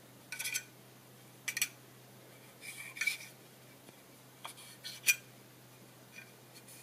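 A thin metal tool scraping and clinking against the aluminium rail of a DRO scale as the channel is wiped out with a rag, in about five short bursts with a light metallic ring.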